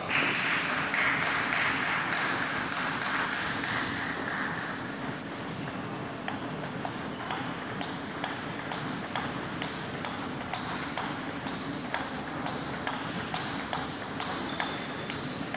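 Table tennis balls clicking irregularly off bats and tables, many sharp ticks at an uneven pace.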